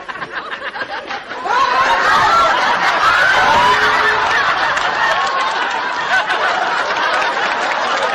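Studio audience laughing, swelling into loud, sustained laughter about a second and a half in.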